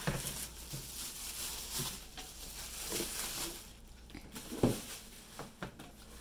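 Clear plastic wrap crinkling and rustling as it is pulled off a tweed guitar case, with a few knocks of the case being handled on a wooden table; one sharp knock about two-thirds of the way through is the loudest sound.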